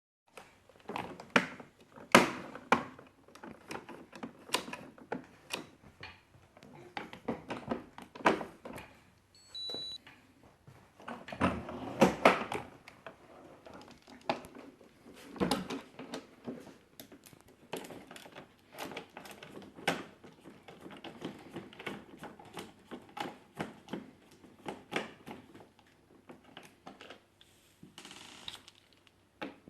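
Hard plastic parts of a Maxi-Cosi FamilyFix car seat base being handled and worked on: irregular clicks, clacks and knocks, some in quick clusters.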